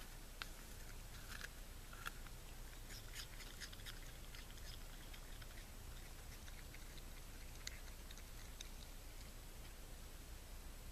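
A raccoon eating an apple: faint, irregular munching and crunching.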